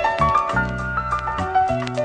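Instrumental music: a song's backing track between vocal lines, with sustained pitched notes over a bass line and a regular beat.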